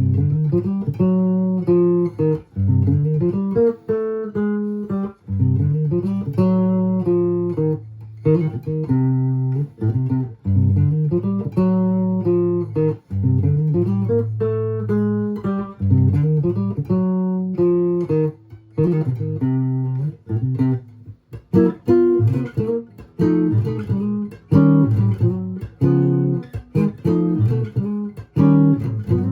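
1941 Gibson ES-300 archtop electric guitar played through a cheap P90 pickup fitted as a stand-in, with plucked chords and melody notes over bass notes. Its tone is a little honky.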